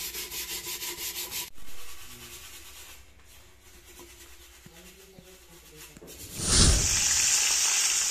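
A cooking pan being scoured by hand, a rhythmic scrubbing at about four strokes a second that stops about a second and a half in. Near the end, food hits a hot pan with a sudden burst and keeps sizzling steadily.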